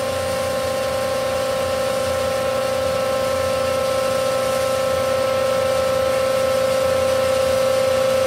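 Microfluidics LV1 Microfluidizer's pump running with a steady, even hum, building up process pressure before the machine reads ready.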